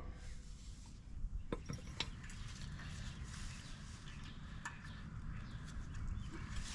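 Faint, scattered metal clicks and light ticks from brake parts and tools being handled at the caliper, over a low steady background hum.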